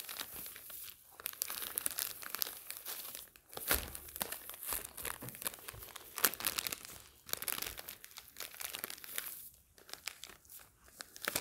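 Clear plastic bouquet-wrapping film crinkling and crackling as it is squeezed and gathered around the stems, in irregular spurts with brief pauses.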